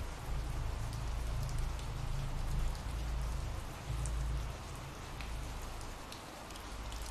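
Steady ambient rain falling, with scattered drops ticking sharply and a low rumble underneath.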